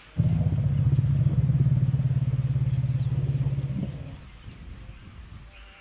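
African elephant alarm rumble, the call elephants give for bees: one deep, steady rumble lasting about four seconds, then fading out.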